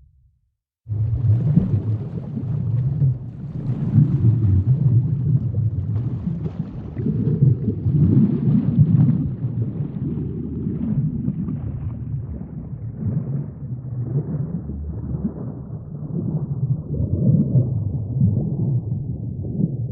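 Low, continuous rumbling noise that swells and eases unevenly, starting after a short break in the sound about a second in.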